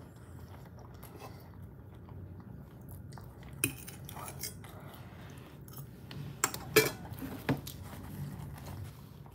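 Metal fork clinking and scraping against a ceramic dinner plate: a few sharp clinks, the loudest bunched together about two-thirds of the way in.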